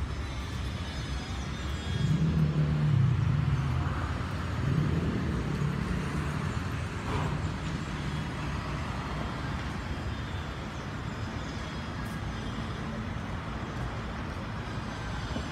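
Road traffic: a motor vehicle's engine drone swelling about two seconds in and fading after six seconds, over a steady street hum.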